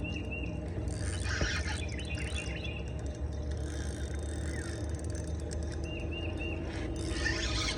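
Small birds chirping in short repeated notes over a steady low rumble of outdoor lakeside ambience.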